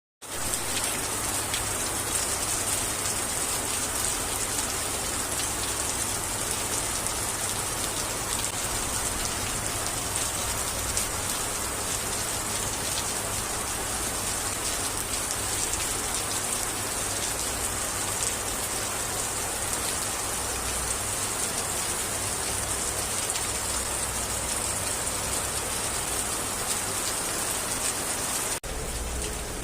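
Heavy rain pouring steadily, a dense even hiss of falling rain with scattered drop ticks; the sound changes briefly about a second before the end.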